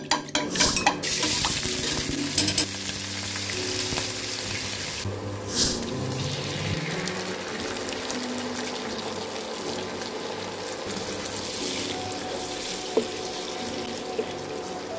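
A fork clicking quickly against a bowl while beating eggs, then sliced onions and chopped chili pepper sizzling in hot oil in a frying pan, stirred now and then with a spatula.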